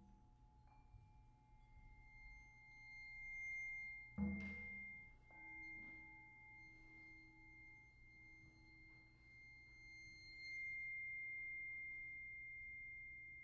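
Percussion quartet playing softly: long, steady high ringing tones sustained over the passage, with one low drum stroke about four seconds in and a lower ringing tone entering just after it.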